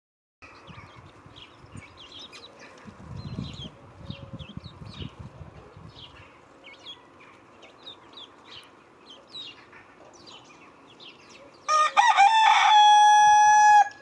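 Small birds chirping at a garden feeder, then near the end a rooster crows once, loudly, a single held call of about two seconds.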